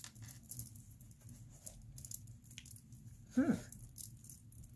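Scattered light clicks and rustles as hands open a small pink fabric bag and handle the rough crystal stones from it, with a brief hum of voice about three and a half seconds in.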